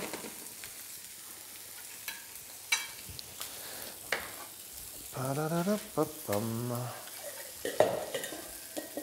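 Confit duck pieces frying in a pan, a steady sizzle, with a few light clicks of utensils.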